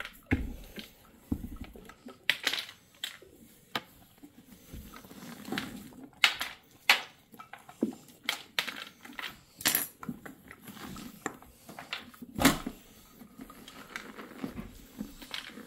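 Pumpkin carving: irregular clicks, taps and light knocks as a small carving saw and hands work a pumpkin, with tools and scraps on metal baking trays.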